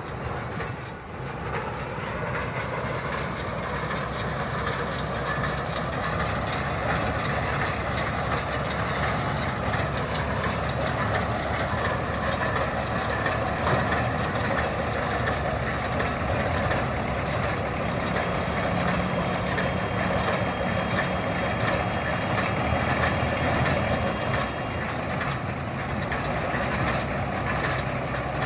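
Tractor-drawn round baler working: the tractor engine runs steadily under load while the baler's pickup and chains clatter.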